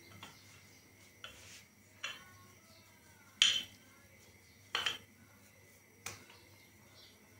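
Wooden rolling pin knocking against a stone rolling board while a ball of dough is rolled out: five short, light knocks spread over several seconds.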